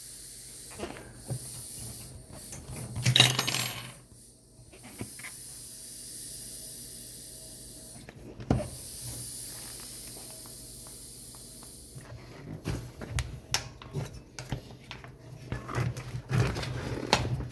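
Air hissing out of a bicycle tire valve in long spells, twice briefly cut off, as the tire is let down. After that come a run of short clicks and scrapes as the wheel and tire are handled.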